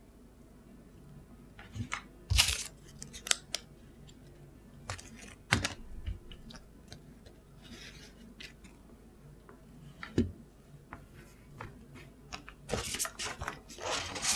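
Irregular handling sounds of a gaming mouse and its packaging: scattered light clicks and knocks with short rustles of packaging, and a longer stretch of rustling near the end.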